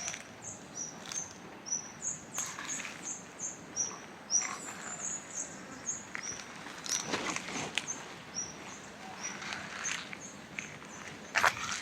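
Footsteps crunching on dry leaves, a handful of steps with the loudest near the end, over a steady run of short, high chirps, about two or three a second.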